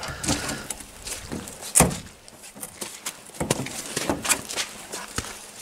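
A hoop house's metal-framed door being opened and passed through. The handle and latch click, with a loud knock about two seconds in and softer knocks after it.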